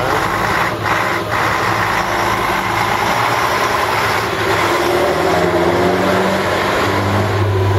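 Diesel engine of a military 6x6 recovery truck running steadily as the truck drives slowly past at close range.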